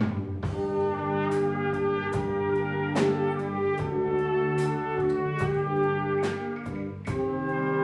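Wind orchestra playing, with brass holding full sustained chords over percussion strikes.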